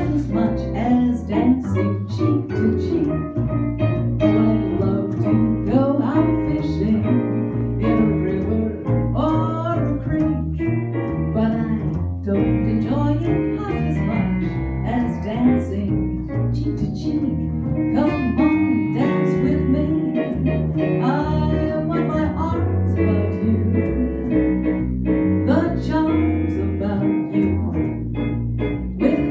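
Live jazz trio playing a swing standard: plucked upright double bass walking under a digital stage piano, with a woman's vocal into a microphone.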